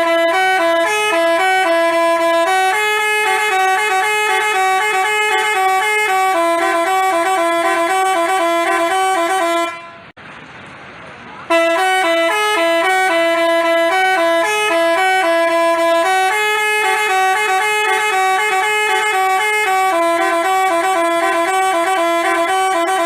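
Telolet basuri bus horn playing a fast, stepping tune of horn notes. It stops for about two seconds near the middle, then plays the tune again.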